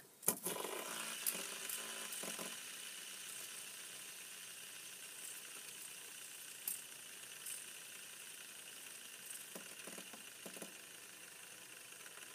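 Fidget spinner flicked into a spin with a couple of clicks, then its ball bearing whirring steadily on the tabletop, slowly fading as it spins down, with a few faint ticks later on.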